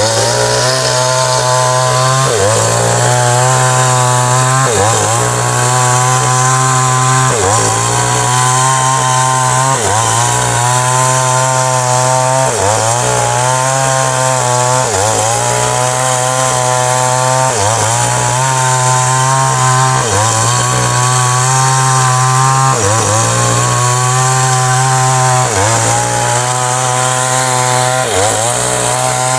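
Small YAMAMAX chainsaw running at high speed as it rips lengthwise along a coconut palm trunk. Its engine note dips sharply and recovers about every two and a half seconds.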